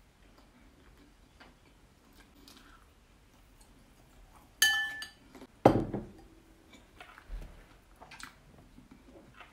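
Dishes being handled: a sharp ringing clink about halfway through, then a louder knock as a ceramic bowl is set down on the table, followed by a few soft clicks.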